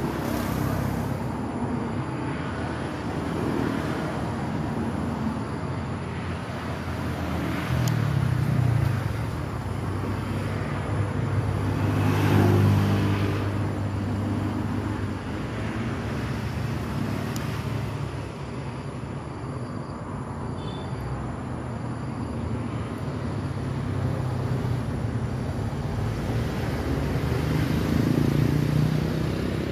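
Road traffic: cars and other motor vehicles passing one after another, engines and tyre noise swelling and fading. The loudest pass comes about twelve seconds in.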